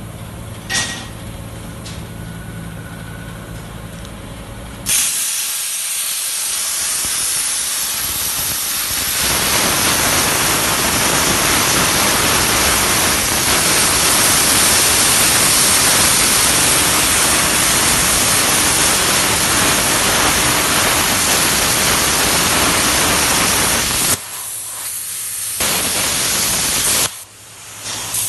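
ADS CUT 100 plasma cutter running, first with a steady machine hum. About five seconds in the torch starts a loud, steady hiss that grows fuller a few seconds later and holds for about nineteen seconds before stopping abruptly. A shorter burst of hiss follows, then the hum returns.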